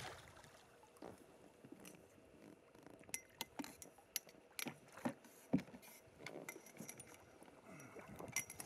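Faint scattered clicks and light knocks from handling in a small inflatable boat as an angler on a light spinning rod brings a pike to the boatside, the clicks thickest in the middle.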